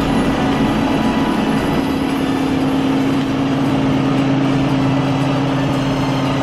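Large truck's diesel engine idling steadily, a constant low hum with an even rumble.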